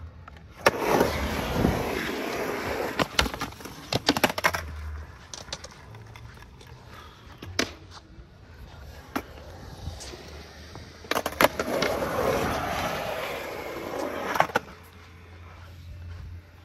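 Skateboard wheels clacking down onto a concrete bank on the drop-in, then a couple of seconds of wheels rolling on concrete, ending in a cluster of sharp clacks as the board hits and comes off. About ten seconds later the same again: a sharp clack, a few seconds of rolling, and a final clack.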